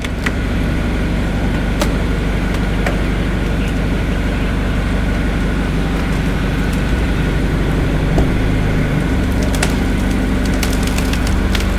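An engine running steadily at a low, even pitch, with a few sharp knocks and cracks.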